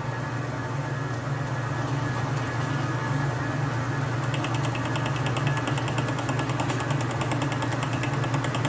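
Atlas metal lathe running, spinning a single-point gear cutter on a bar, with a steady low hum. About four seconds in, a fast even ticking joins the hum as the cutter works the bevel-gear blank.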